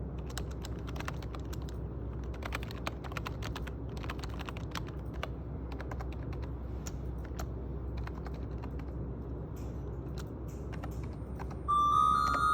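Typing on a computer keyboard: a quick, irregular run of keystroke clicks over a steady low hum. Near the end, a louder chiming, glockenspiel-like melody comes in.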